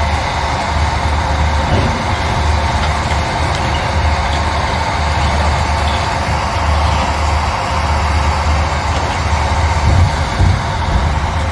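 Diesel engine and hydraulics of a long-reach demolition excavator running steadily as it works the concrete rubble, with a couple of low thumps about ten seconds in.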